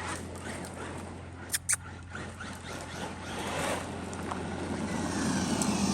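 Traxxas Maxx Slash RC truck's brushless electric motor and tyres running on pavement. The whine and tyre noise build up over the last few seconds, with two sharp clicks about a second and a half in.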